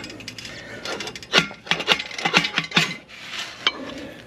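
Metal scraping and clinking as a baffle is worked out of a Vance & Hines Cruzer motorcycle exhaust with a small catching tool, with a quick run of sharp clinks in the middle.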